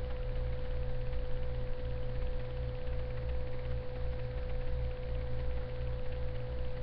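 Steady electrical hum and hiss with one constant mid-pitched tone running unchanged throughout; this is background noise of the recording rather than any event.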